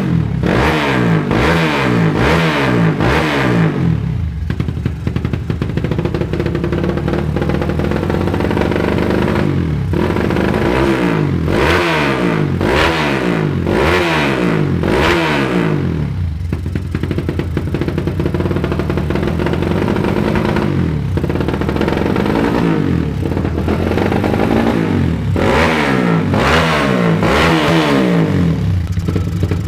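Honda CB motorcycle with a stock Honda Tiger single-cylinder four-stroke engine running on a newly fitted PWK Sudco 35 Airstrikers carburetor, revved in repeated quick throttle blips in three bursts, with steady running between them, as the new carburetor is tested.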